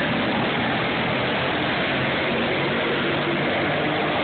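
Engines of a pack of racing go-karts running hard together as the karts race through a turn and down the track, a dense, steady engine noise.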